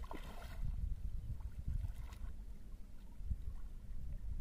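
Pond water splashing and sloshing around a wading man's legs and hands as he moves through the shallows and reaches into the water, with a brief splash at the start. Under it runs a steady low rumble of wind on the microphone.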